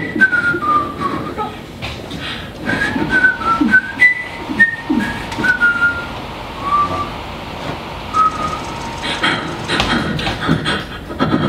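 A person whistling a wandering string of short notes, many sliding downward, as an improvised vocal sound effect. Near the end it gives way to sharp clicking mouth noises.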